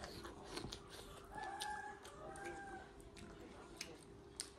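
A rooster crowing faintly in the background: two drawn-out notes about a second and a half in, over the sharp clicks and smacks of chewing close to the microphone.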